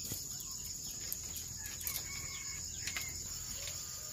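Steady high-pitched drone of insects, with a few faint short calls and clicks over it.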